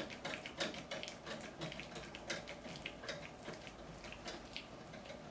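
Faint, irregular small metal clicks and rattles of a hand driver tightening quarter-inch bolts into a thermal copier's aluminium reflector assembly.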